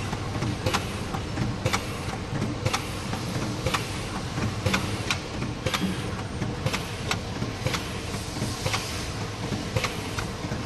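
Automatic battery welding machine running: a steady mechanical hum with sharp clicks about once a second, some in quick pairs.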